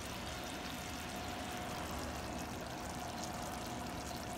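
Chicken adobo sauce bubbling in a wok, a steady watery hiss with faint small pops, over a thin steady hum.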